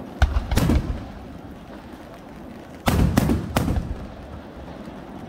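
Aerial firework shells bursting overhead: two or three sharp bangs right at the start, then three more in quick succession about three seconds in.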